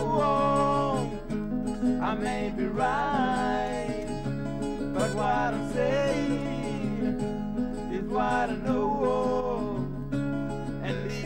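Singer-songwriter demo recording: strummed acoustic guitar with a male voice singing long held notes, each phrase sliding down at its end.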